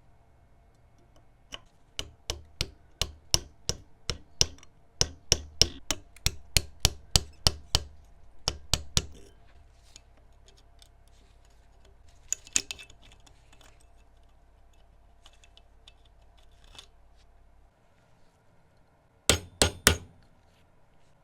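A hammer tapping, about two to three strikes a second for several seconds. A pause with a few faint clinks follows, then three quick strikes near the end.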